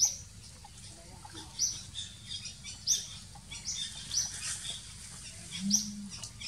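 A bird in the forest giving about six short high chirps, spaced a second or so apart.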